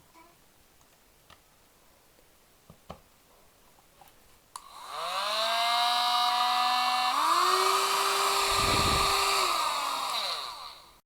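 Mini hair dryer switched on with a click about four and a half seconds in: its small motor and fan whine rise quickly up to speed, step up in pitch to the higher of its two speeds a couple of seconds later, then wind down as it is switched off near the end. A few faint clicks of handling come before it.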